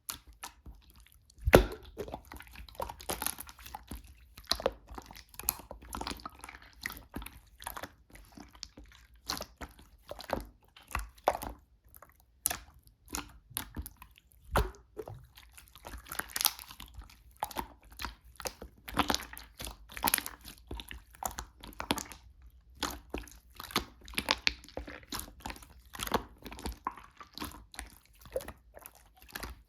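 Slime being squished and pressed by hand, giving a continuous run of irregular sticky clicks and pops, with one loud pop about a second and a half in.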